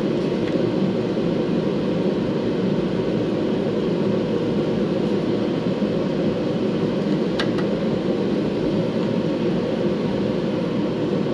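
Space heater running with a steady, even whir, with one short click about seven seconds in.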